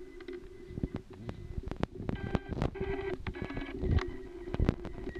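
About four short telephone keypad beeps in quick succession, over a steady low hum and scattered clicks.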